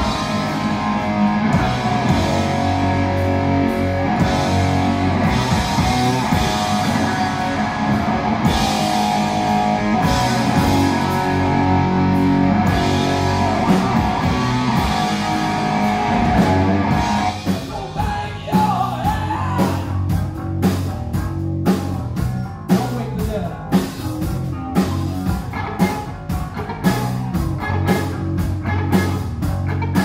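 Live rock band playing loudly: electric guitar, bass and drum kit. A little past halfway the dense held chords thin out, leaving sharp drum hits over the bass.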